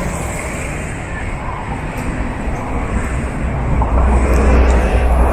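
Busy city street ambience: steady traffic noise from cars passing on the avenue, with a deeper low rumble swelling about four seconds in.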